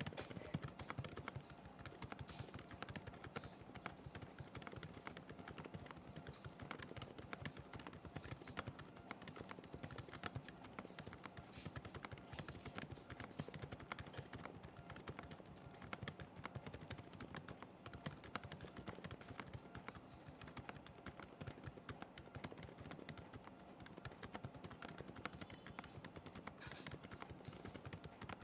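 Typing on a Kzzi K75 mechanical keyboard with TTC Pink Gold V3 switches: a quick, continuous stream of faint key clacks.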